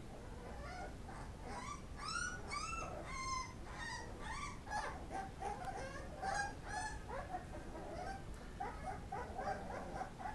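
Litter of pit bull puppies whimpering and yipping in short, high, arching squeals, several a second and overlapping, as they crowd together at a shared feeding pan.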